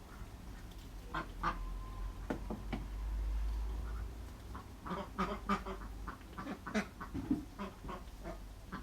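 Ducks quacking in short, scattered calls, busiest in the second half.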